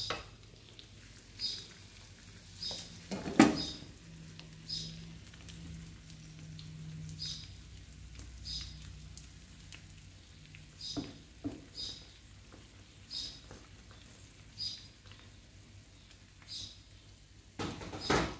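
Eggs frying in a pan, with a faint steady sizzle. Over it, a short high chirp repeats about once a second. A loud knock comes about three seconds in, and another sharp clatter near the end.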